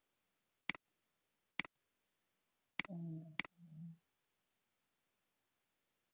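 Computer mouse clicking: four sharp clicks spread over about three seconds, each a quick press-and-release pair.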